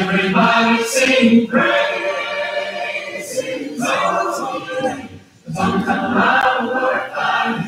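Voices singing a worship song in long held phrases, with a brief pause about five seconds in.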